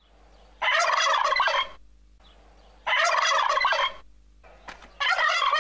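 A male turkey gobbling three times, about two seconds apart, each gobble a rapid rattling call lasting about a second.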